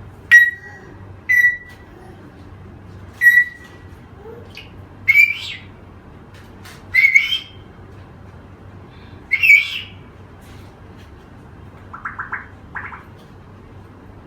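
An African grey parrot giving a series of loud, separate whistled squawks, about six calls a second or two apart, then a quieter quick chatter near the end.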